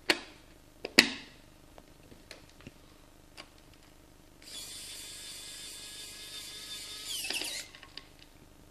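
Two sharp plastic clicks as a multimeter's battery cover is pressed into place, then a small electric precision screwdriver runs for about three seconds with a high whine, driving in the cover screw. The whine rises in pitch and gets louder just before it stops.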